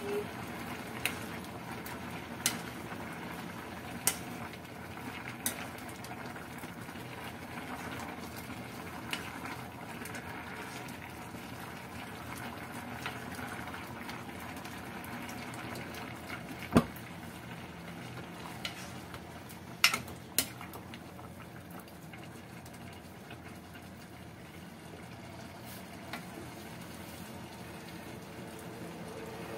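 Coconut-milk stew of cassava leaves bubbling at a steady boil in a pot. A ladle stirs it and knocks against the pot a few times, with the sharpest clinks about 17 and 20 seconds in.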